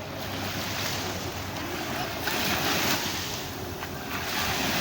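Sea waves breaking and washing up on a sandy beach: a steady surf noise that swells with a wave about two seconds in and again near the end.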